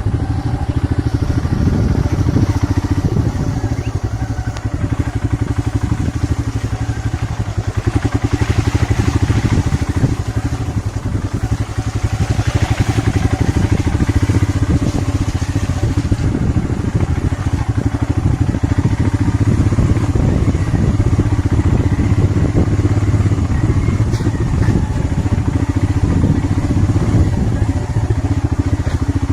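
Single-cylinder motorcycle engine running steadily while the bike is ridden.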